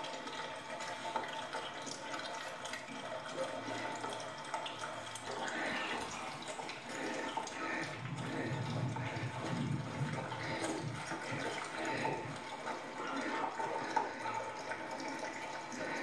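A litter of puppies lapping and slurping at food bowls: a continuous wet, splashy noise, with a faint steady tone underneath.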